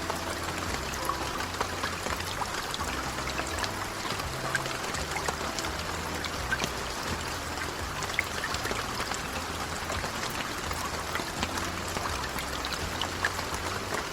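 Steady rain: an even hiss of falling water scattered with many small drop ticks, over soft, low, sustained background music.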